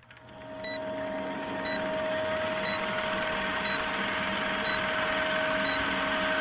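Vintage film projector sound effect for a countdown leader: a steady mechanical whir and rattle with film hiss and crackle, and a short faint blip about once a second. It fades up in the first second.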